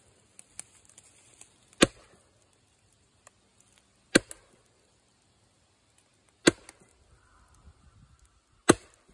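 Steel splitting wedge being struck with a hammer to drive it into a tree stump: four sharp metal-on-metal strikes, about two seconds apart, each with a short ring.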